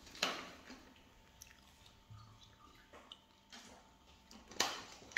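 A person chewing a mouthful of chicken fajita wrap: soft, wet mouth sounds, with a few short louder smacks, the loudest near the end.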